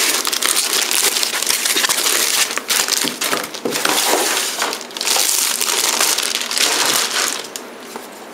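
Clear plastic bag crinkling and rustling as a boxed device is pulled out of it and unwrapped, dying down about seven seconds in.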